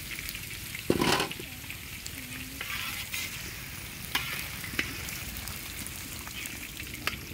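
Potato chunks sizzling in hot oil in a large iron kadai, with a long-handled metal slotted ladle stirring and scraping against the pan. The loudest knock comes about a second in, with a few lighter clicks later.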